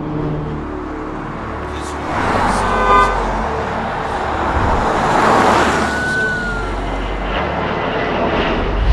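City road traffic noise with a car horn sounding briefly between two and three seconds in, the traffic swelling louder around the middle.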